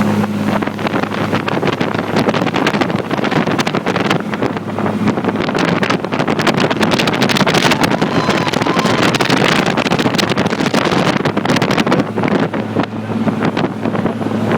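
A motorboat's engine running steadily under way, with heavy wind buffeting on the microphone. The buffeting swells over the middle and drowns the engine hum, which comes through clearly again near the end.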